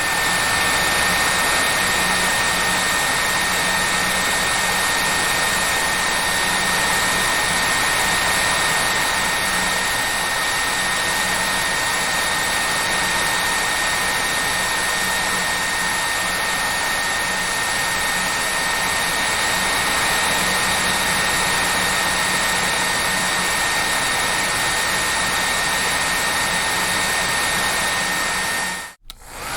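Hair dryer running steadily: an even rush of air with a steady high whine from its motor and fan. Near the end it cuts out for a split second and comes back on.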